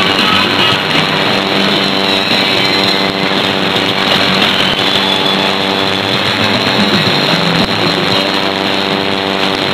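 Shortwave broadcast on 11850 kHz received in AM through a software-defined radio: steady static and hiss with a buzzing hum, and weak music from a test transmission underneath.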